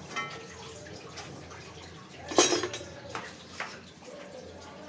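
Cooking sounds at a karahi: a steady sizzle of hot ghee, with a loud scrape or clatter of a spoon against the pan about halfway through and a few lighter clinks after it.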